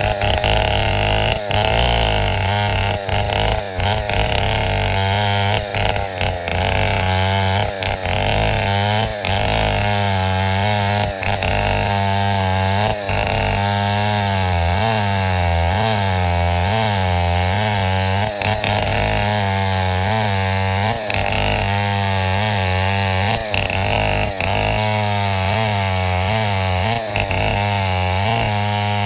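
Chainsaw running at high speed, cutting wood steadily, with only brief dips in its note.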